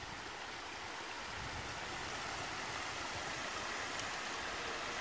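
Steady rush of flowing creek water, an even hiss that swells slightly over the seconds, with one faint tick about four seconds in.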